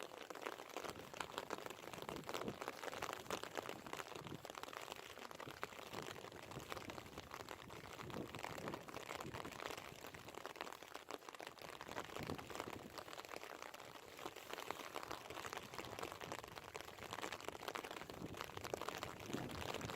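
Steady rain patter: a dense crackle of many small drops, with no letup.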